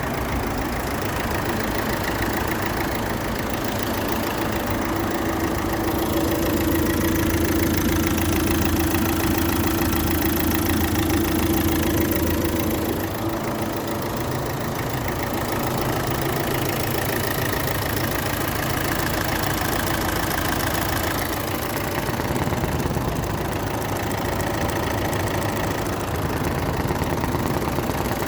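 Opel Astra J 1.7 CDTI four-cylinder turbodiesel idling steadily with a fast, even clicking, which the owner asks about as possibly abnormal. A stronger hum comes up for several seconds in the middle, then settles back.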